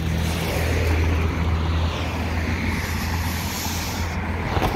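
Road traffic noise: a vehicle passing on the road beside the sidewalk, a steady low rumble with a swelling hiss. A single sharp knock near the end.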